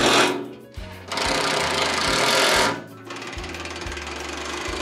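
Background music: a low bass line stepping between notes, under loud, dense, noisy stretches that cut in and out, the longest from about a second in to about two and a half seconds.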